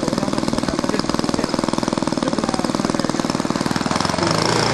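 Cessna 152's four-cylinder Lycoming O-235 piston engine running at low rpm with a rapid, even pulsing. About four seconds in it gets louder as the engine speeds up.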